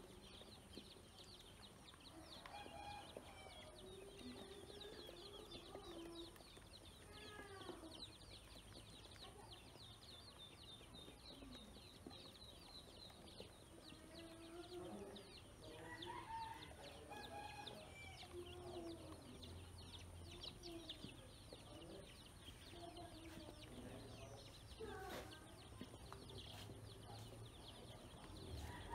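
Faint, rapid high peeping of a group of domestic ducklings, with scattered lower calls of other fowl.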